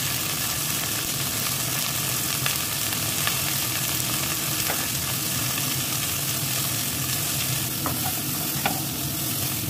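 Cauliflower florets sizzling steadily as they fry in hot oil in a pan, with a few faint clicks, including a spatula touching the pan near the end.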